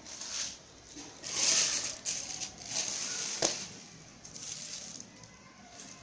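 Clear plastic wrapping crinkling and rustling as the sheet inside is handled, in several bursts, the loudest about a second and a half in, with a sharp click a little past the middle.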